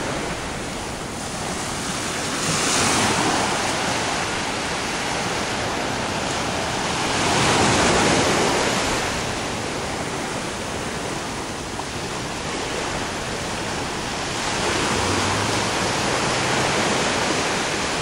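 Small ocean waves breaking and washing up onto a sandy beach in a steady rushing surf that swells about three seconds in, most loudly around eight seconds in, and again near the end.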